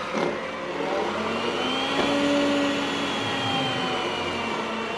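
Yeedi Vac 2 Pro robot vacuum running in vacuum mode with a steady motor whir. Its pitch climbs and the sound gets a little louder a second or two in as it raises suction power on the carpet, then eases slightly near the end.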